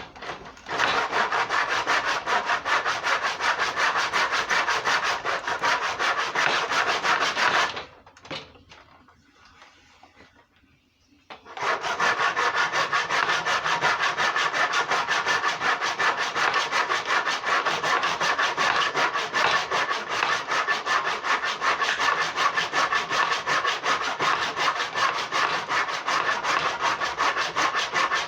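Hand saw sawing with a steady run of quick back-and-forth strokes. It stops for about three and a half seconds, starting a third of the way in, then starts again and keeps going.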